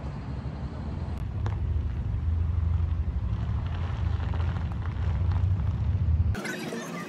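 Low, uneven rumble of wind buffeting the microphone outdoors, cutting off abruptly near the end.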